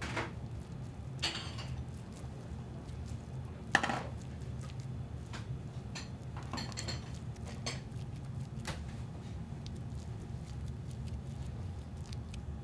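Utensils and dishes clinking and knocking now and then, the loudest clink about four seconds in, over a steady low hum.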